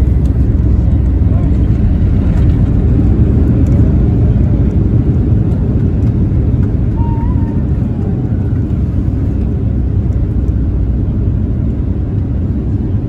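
Cabin noise of a Boeing 737-800 rolling out after touchdown, spoilers raised: a loud, deep rumble of its CFM56 engines, airflow and runway that eases slowly as the aircraft slows.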